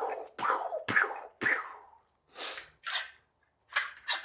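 A woman making gunshot noises with her mouth: a quick string of short, breathy 'pew'-like bursts, about two a second, then a few hissier ones with gaps between.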